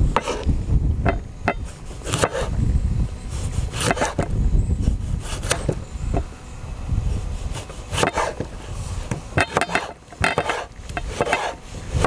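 Kitchen knife slicing and dicing tomatoes on a wooden cutting board: irregular knocks of the blade hitting the board, with a steady low rumble underneath.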